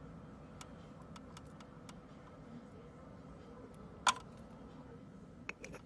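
Faint, irregular light ticks of a metal pick against small pink conch pearls as they are moved about on a cloth, with one sharper click about four seconds in and two more near the end, over a low steady room hum.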